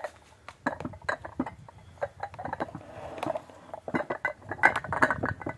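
Glazed ceramic cooking pots clinking and knocking against each other and being set down on a wooden table: a quick run of sharp knocks, some with a short ringing clink, busiest and loudest in the second half.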